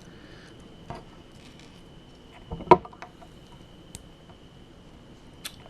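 A few small plastic clicks and taps of LEGO minifigure pieces being handled and fitted together, with one sharper snap a little under three seconds in.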